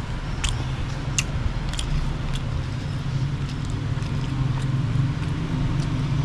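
A person chewing a mouthful of soft fish, with a few sharp mouth clicks, over a steady low motor hum.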